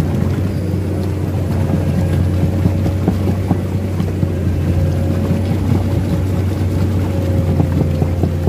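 Excavator's diesel engine running steadily as the machine travels on its steel tracks through deep mud, with scattered light clicks.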